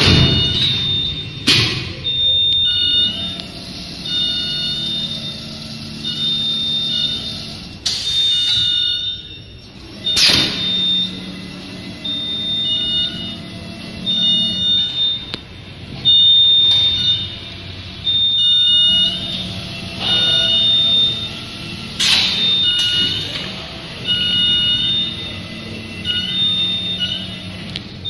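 Servo-driven three-axis gantry stacking robot running through its cycle. Its axis motors run in spells of a second or two, with short high beeps repeating every half second or so and a few sharp clanks.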